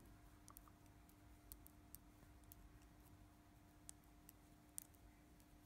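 Knitting needles clicking lightly and irregularly as stitches are worked along a row, over a faint steady hum.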